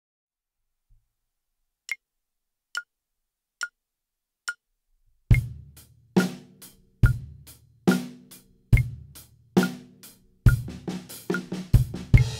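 Metronome clicking a four-beat count-in at 70 bpm, then a drum kit joins in time with it: bass drum, snare and hi-hat. The playing includes quieter snare ghost notes between the accents, and the strokes crowd into a run of sixteenth notes near the end.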